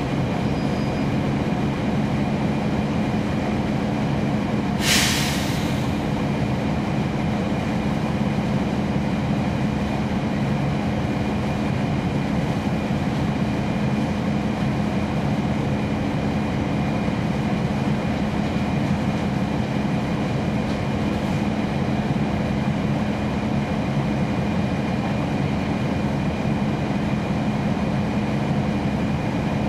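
NABI 40-SFW transit bus heard from inside the cabin, its Cummins ISL9 diesel engine running in a steady drone at an unchanging pitch. About five seconds in, a short loud hiss of released compressed air cuts through.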